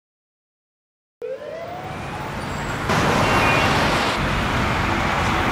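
About a second of silence, then dense city street traffic noise starts abruptly, with a siren's slow wail rising and then falling through it. The traffic gets louder about three seconds in.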